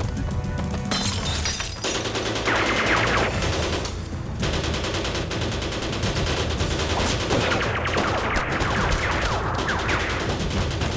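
Dramatised film gunfight: sustained rapid gunfire from rifles and automatic weapons, shots following close on one another, with a dramatic score underneath.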